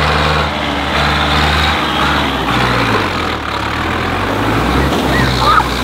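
Zetor tractor's diesel engine working under load through mud, its speed rising and falling several times.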